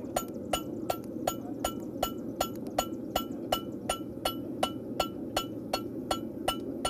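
Farrier's hammer striking a steel horseshoe on the anvil in a steady rhythm, a little under three blows a second, each blow ringing, with a steady low hum underneath.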